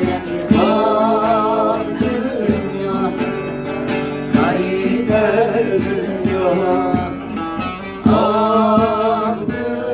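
A bağlama (long-necked saz) is played with quick plectrum strokes while several voices sing a Kurdish folk song in unison with wavering vibrato. The sung lines swell about half a second in and again about eight seconds in.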